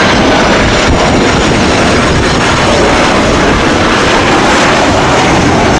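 Twin-engine widebody jet airliner taking off, its engines at takeoff thrust in a loud, steady roar that cuts off suddenly at the end.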